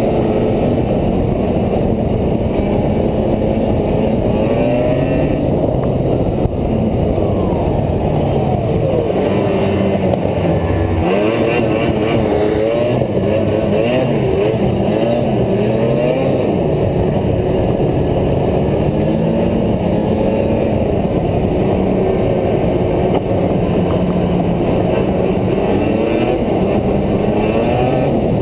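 2007 Ski-Doo Rev 440 snowmobile's two-stroke engine running under way along the trail, its pitch rising and falling repeatedly through the middle as the throttle is worked, steadier before and after.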